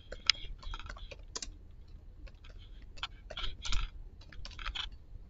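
Typing on a computer keyboard: irregular runs of key clicks with brief pauses between them as words are keyed in.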